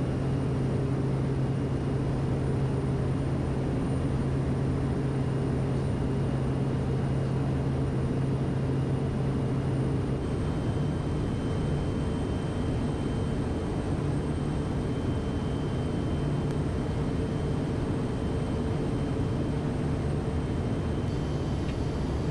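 Steady in-flight drone of a Kodiak 100's turboprop engine and propeller, a low hum with a thin high whine over it; the hum steps slightly in pitch about ten seconds in.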